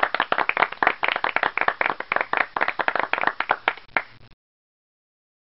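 Applause sound effect: a small crowd clapping in quick, irregular claps that cut off suddenly about four seconds in.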